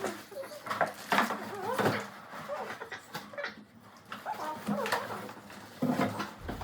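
A toddler's wordless vocalizing: short, high-pitched babbles and squeals that rise and fall.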